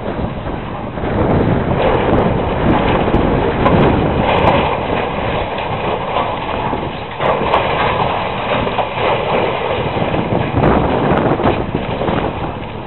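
Hydraulic demolition excavators tearing down a building: engines running under load amid a continuous crunching and crashing of breaking concrete and falling debris, with wind buffeting the microphone.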